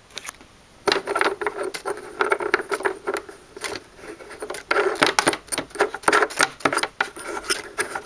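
A fish finder transducer's mounting nut being screwed by hand onto its threaded stem inside a bait boat hull: a rapid, irregular run of plastic clicks and scrapes, starting about a second in.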